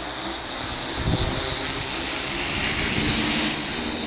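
Quadcopter's four Turnigy D2836/11 brushless motors spinning 11x4.7 APC slow-fly propellers in flight: a steady buzz with a high whine on top. It swells louder and brighter about three seconds in, with a brief low rumble about a second in.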